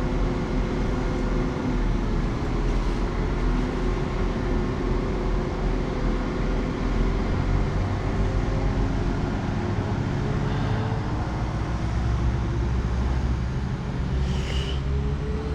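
Diesel train going past, its engine running steadily. A low rumble grows from about halfway through, and the engine note slowly rises in pitch toward the end.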